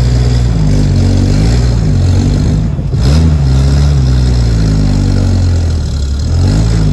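A WW2 DUKW amphibious truck's GMC straight-six engine pulling the truck along the road. Its pitch climbs, drops sharply about three seconds in, climbs again, sags briefly and rises once more near the end.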